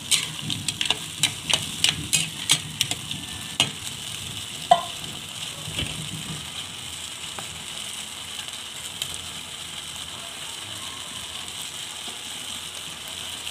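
Spatula stirring and scraping in a metal wok of mussels and tofu, with a run of clicks against the pan over the first few seconds and one sharp knock almost five seconds in. After that, the pan sizzles steadily.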